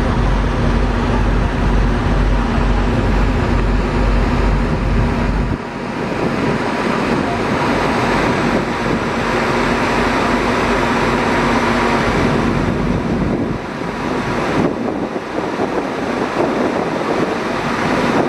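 Steady engine rumble and rushing noise of a vehicle under way, with a deep hum that drops away about five and a half seconds in.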